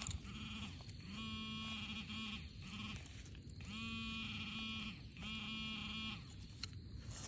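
Garrett handheld pinpointer giving its buzzing alert tone in on-off spells of half a second to a second as its tip is worked around the hole: it is sensing a buried metal target.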